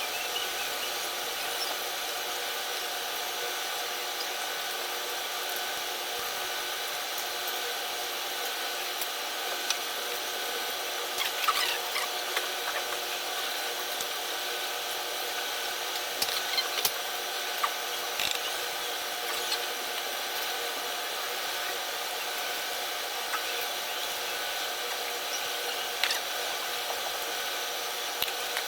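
A steady machine-like whir with several fixed tones, with a few brief clicks and crunches of eating standing out a little before the middle, about halfway through and near the end.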